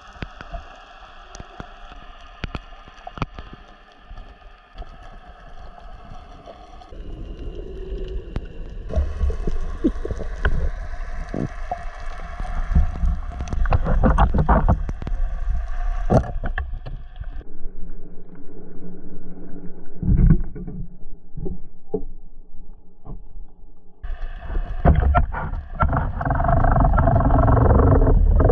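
Muffled underwater sound picked up by a camera in a waterproof housing: rushing water and bubbling with a deep rumble and scattered knocks. It grows louder and fuller near the end.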